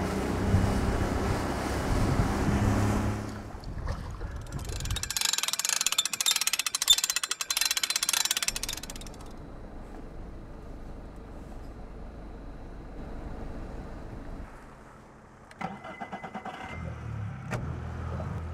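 Engine and vehicle sounds through a series of cuts. A loud engine rumble opens, followed by a stretch of crackling hiss and then a quieter steady hum. Near the end there are a few clicks, and then an engine settles into a steady low idle.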